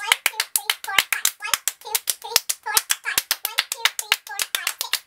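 Hand-clapping game played by two people: a fast, steady run of sharp claps, about five a second, alternating their own claps with palm-to-palm slaps against the partner's hands.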